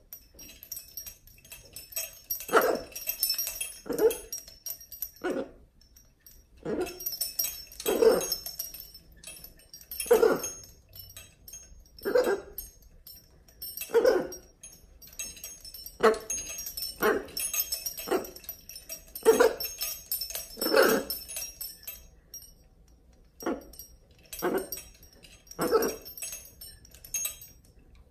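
Hyacinth macaw giving a long run of short, dog-like barks, one every second or two, with a short pause a few seconds before the end.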